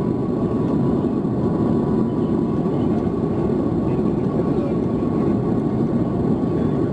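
Airbus A330-300 cabin noise heard from a window seat over the wing: the steady, deep rush of the jet engines and airflow, with a faint steady whine above it.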